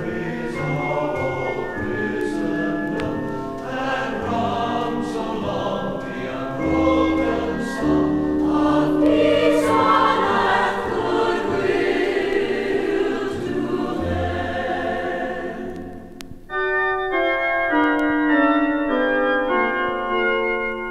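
Choir singing a Christmas carol with orchestral accompaniment. About sixteen seconds in the voices stop and a lighter instrumental passage of short, separate notes takes over.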